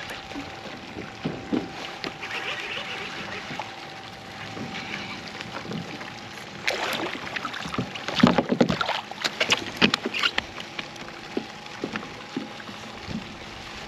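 A hooked tautog being landed in a kayak: a burst of splashing and knocking in the middle as the fish comes out of the water and over the side, then a few scattered knocks as it flaps on the angler's lap.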